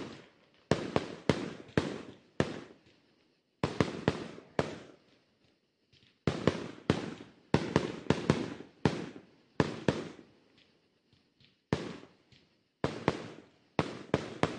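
Fireworks display: a run of sharp bangs from bursting shells, several a second in quick clusters with short pauses between, each fading out over a fraction of a second.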